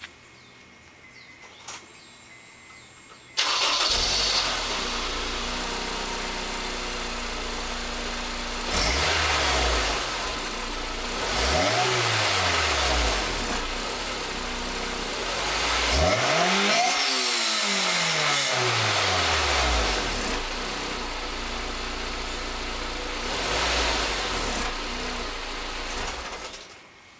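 Honda S2000 (AP1) four-cylinder engine, heard through its stock exhaust, comes in abruptly a few seconds in and idles, then is revved several times, each rev sweeping up and back down, the highest about sixteen seconds in; it cuts off near the end.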